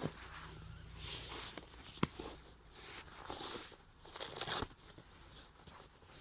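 Intermittent rustling and handling noises of clothing and small items being moved about, with one sharp click about two seconds in.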